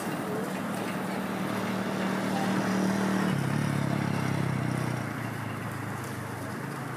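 Articulated trolleybus passing by: a low hum over road noise that grows louder, drops in pitch about three seconds in as it goes past, then fades.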